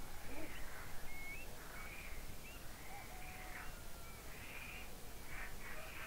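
Countryside dawn chorus: several birds calling with short whistled notes and chirps, mixed with a few rough, raspy calls.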